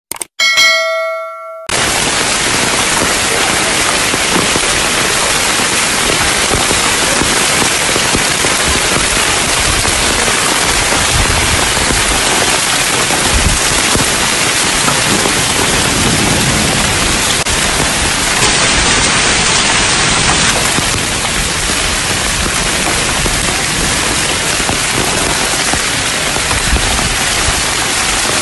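Heavy rain pouring steadily onto an open paved courtyard, a dense, even hiss. It follows a short electronic chime of a subscribe-button sound effect in the first two seconds.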